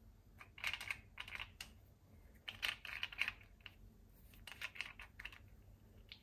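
Light plastic clicks and rattles from a small reagent dropper bottle being handled, in four or five short clusters.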